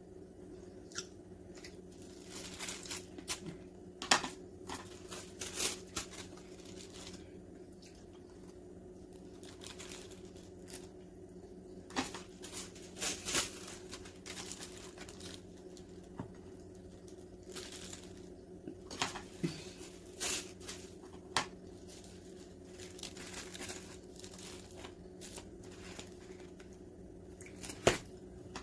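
Plastic divider sheets crinkling and rustling in short, irregular spurts, with occasional sharp taps and clicks of handling, over a faint steady hum.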